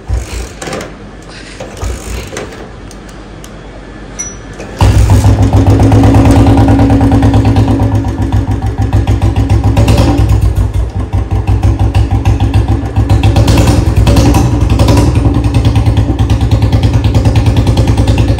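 Royal Enfield Bullet's single-cylinder four-stroke engine: a few knocks, then it fires about five seconds in and settles into a fast, even thumping idle through its stock silencer with a bend pipe. This is the first start of the day, with the engine being left to warm up.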